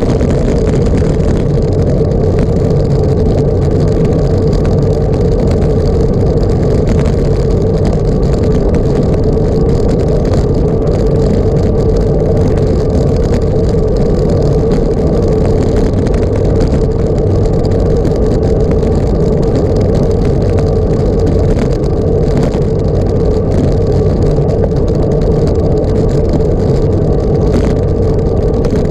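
A motor engine running steadily at constant revs, a held drone over a low rumble, with no change in pitch.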